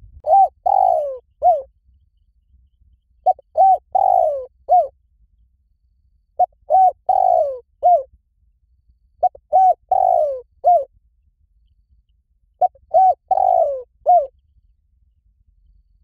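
Spotted dove cooing: five phrases about three seconds apart. Each phrase has a couple of short coos, a longer falling coo and a short closing note.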